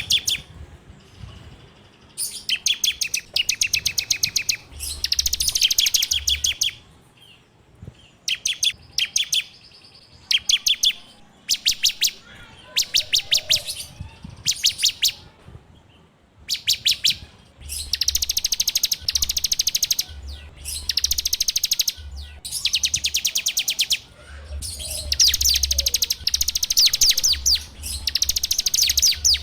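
A ciblek (prinia) singing in rapid rattling trills. Each burst is a fast run of high, evenly repeated notes lasting a second or two, and the bursts come again and again with short pauses between them.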